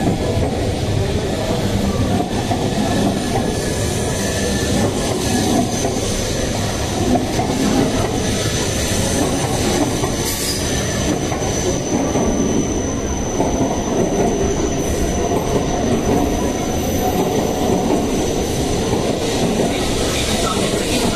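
Coupled E3 series 1000 and E2 series 1000 shinkansen trains rolling slowly past the platform, a steady rumble of wheels on rail. Through the middle a thin high-pitched squeal is held for about ten seconds.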